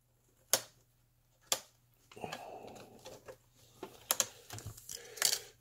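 Sharp plastic clicks about a second apart, then a hand fumbling at a laptop's front edge with a few more clicks as it works at the SD card slot, the card being pushed to release it.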